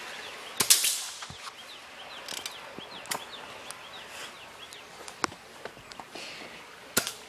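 BB gun shots striking a large corrugated metal pipe: a sharp crack with a short ringing tail about half a second in, and another sharp crack just before the end. Small clicks and faint high chirps run between them.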